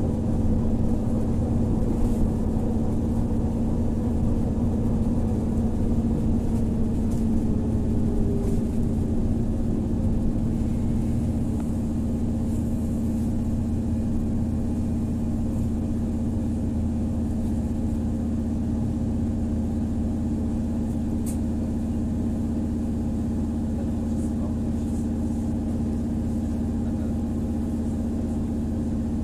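Cabin noise inside a BKM 333 trolleybus: a steady electric hum over road rumble. A fainter whine falls in pitch over the first nine seconds or so, after which the noise settles a little quieter.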